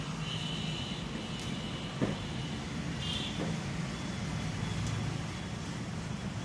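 Steady low hum with a couple of light knocks as the round chamber door of an OCA lamination bubble-remover is shut and its clamp handle worked, the sharpest knock about two seconds in.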